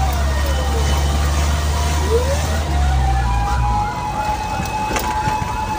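Fire truck siren wailing: its tone falls, then rises again about two seconds in and holds high, while a second siren yelps rapidly at a higher pitch behind it. A diesel engine runs low underneath, heard from the truck's cab, and fades about four seconds in.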